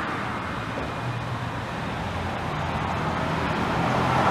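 Steady road-traffic and car noise with a low engine hum, growing a little louder toward the end.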